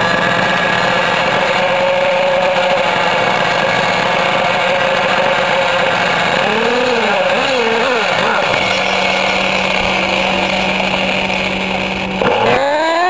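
Nitro glow engine of a Losi 8ight 2.0 RC buggy running steadily just after starting, with its pitch wavering for a couple of seconds in the middle. Near the end the revs rise sharply.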